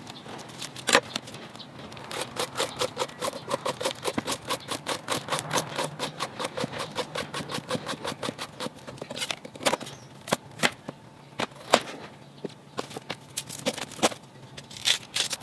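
Hand peeler shaving the green skin off a fresh bamboo shoot: quick, repeated scraping strokes, about three or four a second for several seconds, then slower, scattered strokes.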